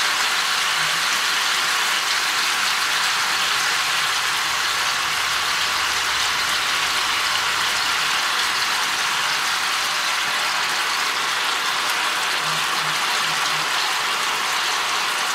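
Partly frozen beef meatballs sizzling steadily in a hot wok.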